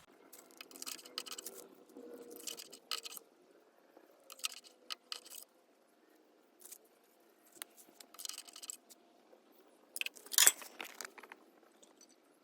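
A string of short, irregular clinks and scrapes from small hard objects being handled, the loudest about ten seconds in.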